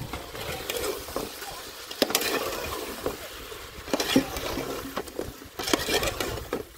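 A metal spoon scraping and clinking against an aluminium cooking pot as chicken pieces are stirred and turned, with several sharp clinks.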